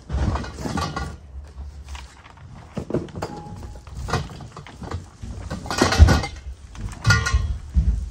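Trampoline frame tubes knocking and rattling against each other and the cardboard box as they are unpacked, with a low rumble underneath; the loudest knocks come about six and seven seconds in.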